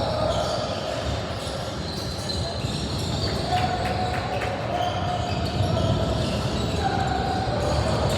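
A basketball being dribbled on a gym court, with a steady background of voices.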